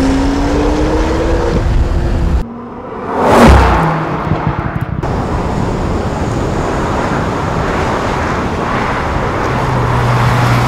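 Porsche 911 Turbo S (991) twin-turbocharged 3.8-litre flat-six accelerating, its note rising steadily. After a sudden cut, the car passes by loudly about three and a half seconds in, then steady engine and tyre noise, with a low steady engine hum near the end.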